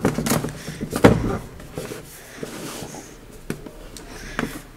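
Sneakers handled and set down on a shoebox: a few knocks of the soles against the box, the loudest about a second in, with rustling of the shoes between.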